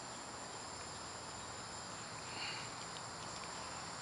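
A few faint, soft clicks of the Deeper sonar ball being threaded onto its flexible mounting rod, over a steady background hiss.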